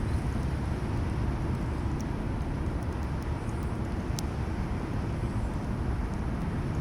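Wood campfire burning, with a few sharp crackles and pops over a steady low rumble.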